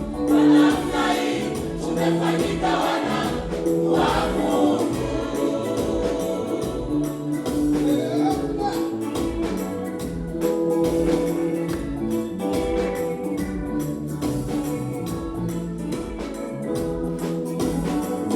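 Choir singing a gospel song in Swahili, several voices holding chords over a steady, regular beat.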